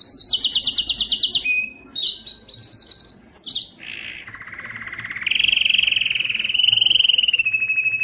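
Male canary singing: a string of fast, evenly repeated trills. It starts with high, quick trills, breaks off briefly, then shifts about halfway through to a lower rolling trill that runs on for several seconds.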